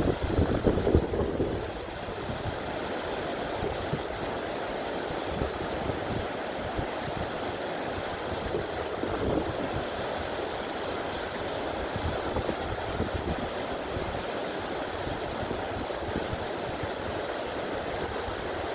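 Waterfall rushing steadily, a constant noise of falling water. In the first second or two there are louder low gusts, like wind buffeting the microphone.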